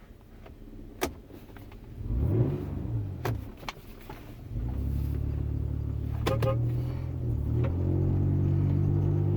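Straight-piped 2001 Toyota 4Runner exhaust fitted with a homemade Helmholtz resonator, heard while manoeuvring at low speed. A few sharp clicks and knocks, and a brief rev about two seconds in, give way about halfway through to a steady exhaust drone that grows louder near the end as the truck pulls away.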